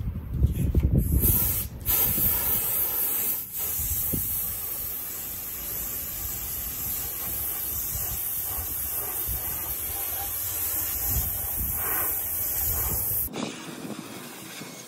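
Gravity-feed air spray gun spraying thinned paint onto a motorcycle frame: a steady hiss of air that cuts off suddenly near the end, with a low rumble underneath.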